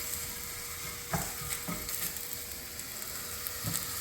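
Onions and red, green and yellow peppers sizzling as they fry in sunflower oil in a pan. There are a few short knocks about a second in, again shortly after, and near the end.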